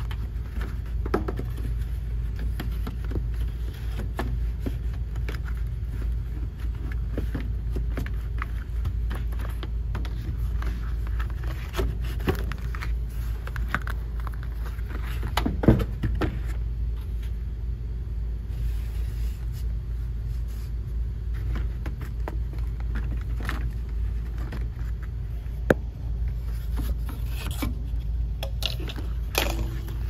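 Cardboard-framed air filters scraping and knocking against the sheet-metal filter rack of an air handler as they are slid into place, with a couple of sharper knocks, over a steady low hum.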